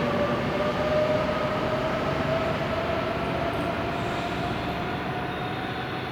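East-i (E926) Shinkansen inspection train pulling away, its motor whine rising slowly in pitch over a rushing running noise that fades as it goes.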